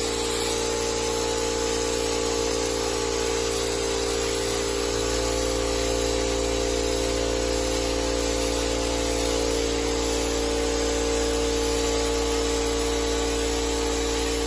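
Compressed-air hopper spray gun spraying cork coating onto a wall: a steady hiss of air with a steady hum mixed in, unbroken throughout.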